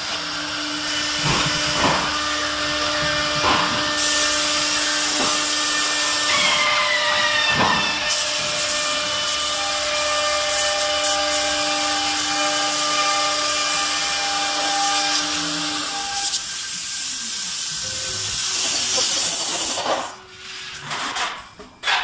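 CNC wood router spindles running and routing wood cabinet door panels: a steady high whine over cutting hiss, with a few sharp knocks in the first several seconds. The machine sound drops away sharply about two seconds before the end, leaving scattered clicks.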